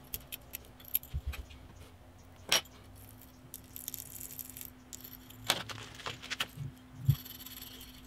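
A small metal pick scraping and clicking inside a metal Glock night sight held in a vise, digging out old adhesive and the old tritium vial: irregular light ticks and short scratches, with one sharper click a few seconds in. A faint steady hum runs underneath.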